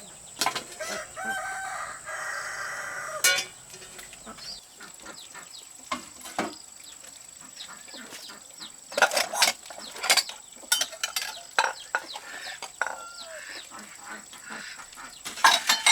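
A rooster crowing once, a long call starting about half a second in, followed later by scattered sharp clicks and knocks.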